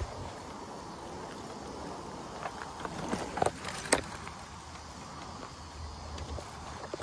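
E-bike rolling down a dirt trail: a steady rush of tyres on dirt and wind on the microphone, with a few sharp clacks and rattles from bumps in the trail about three to four seconds in.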